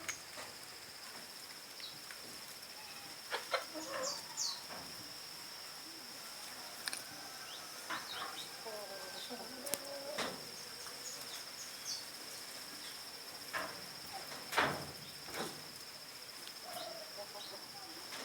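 A steady high-pitched insect trill runs throughout. Short, scattered clucks and chirps from chickens and birds sound over it, the loudest about ten and fourteen and a half seconds in.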